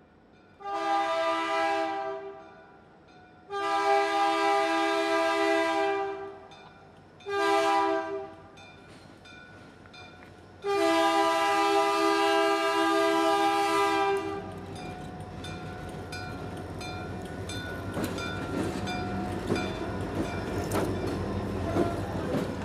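Diesel freight locomotive's multi-chime air horn (the lead EMD GP40's P3 horn) sounding the grade-crossing signal: two long blasts, a short one and a final long one. After the horn stops, the locomotives' engines rumble and the wheels clack over the rail joints as the train rolls through the crossing.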